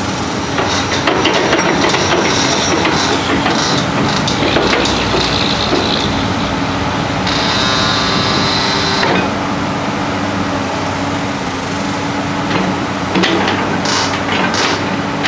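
Komatsu PC200LC-7L excavator's six-cylinder diesel running steadily, with irregular knocks and scrapes from the machine working. A high whine comes in for about two seconds in the middle, then stops abruptly.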